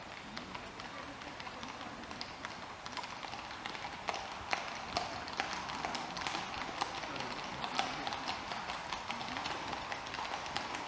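Hooves of a group of Icelandic horses clip-clopping on a wet asphalt road. The hoofbeats come thick and irregular from several horses and grow louder about four seconds in as the horses draw near.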